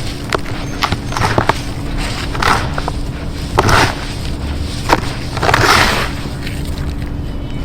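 Lumps of red dirt being crumbled by hand: irregular sharp cracks and gritty crunching bursts, the longest crumble about five to six seconds in, over a steady low hum.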